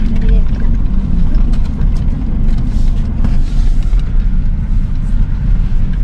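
Steady low rumble of an SUV driving slowly over a rough, stony dirt road: tyre and engine noise.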